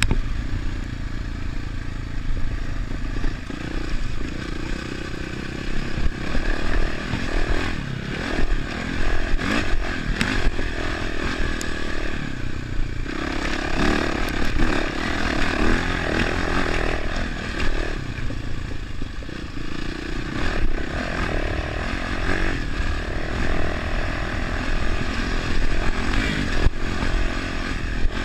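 Dirt bike engine running under changing throttle as the bike is ridden over rough dirt and grass, its pitch rising and falling as the rider opens and closes the throttle, over a steady low rumble.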